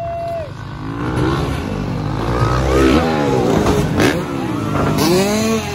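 Two dirt bike engines revving at once, their pitches swinging up and down in overlapping glides as the riders work the throttle through a jump. A short sharp knock comes about four seconds in.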